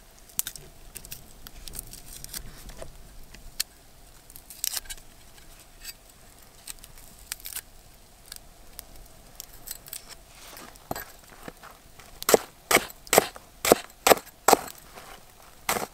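Large broad-bladed knife cutting red onion on a wooden log stump: light scattered clicks and cuts for most of the stretch, then, near the end, an even run of sharp chops on the wood, about two or three a second.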